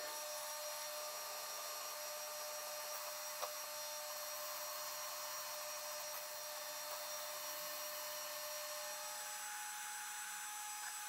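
Milling machine spindle running with an end mill cutting a brass igniter body: a steady high machining whine, its tone shifting slightly about nine seconds in.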